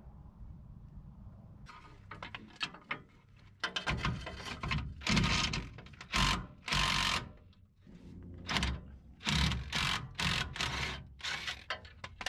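Hand tools working on the truck's underside: clusters of rapid mechanical clicking and metal clanks, with a few louder bursts of about a second each in the middle.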